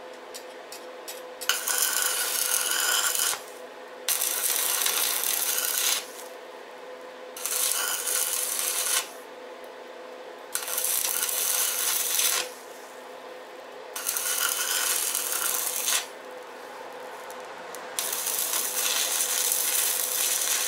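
Stick (arc) welder crackling and hissing in six short runs of about two seconds each, with pauses of about a second between them, as short welds are laid on a steel motorcycle frame.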